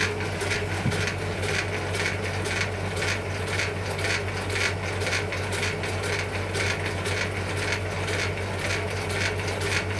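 Small electric motor driving the crank-and-linkage mechanism of an oscillating-foil test rig, which flaps and pitches a plastic foil. It runs with a steady low hum and a regular rapid clicking, several clicks a second, from the moving linkage.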